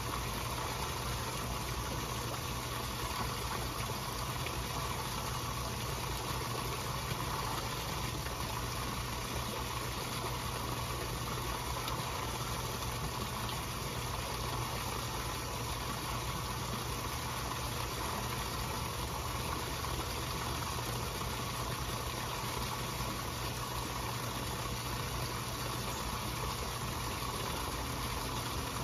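Steady low mechanical hum from a koi pond's pump under an even wash of water noise, as the koi churn the surface while feeding.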